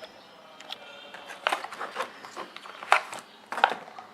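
Items from a lens cleaning kit handled in their plastic packaging: irregular rustling with a few sharp clicks, the strongest about three seconds in.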